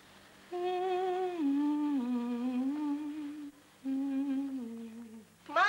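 A woman humming a slow lullaby to a child in two phrases of long held notes that step down in pitch. A brief, loud vocal cry or exclamation breaks in at the very end.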